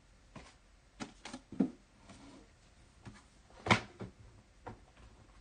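Scattered light clicks and knocks of handling, about seven of them, the loudest about three and a half seconds in.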